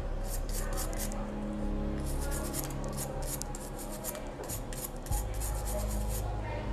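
Quick scratchy scrubbing strokes on a phone's circuit board, several a second: cleaning the pads where a shorted capacitor has just been removed. The strokes stop near the end.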